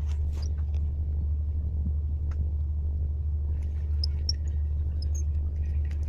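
A steady low rumble, with a few short, faint high chirps about four to five seconds in.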